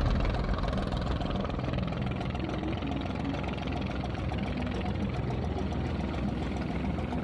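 Wooden fishing boat's engine running steadily at an even pace.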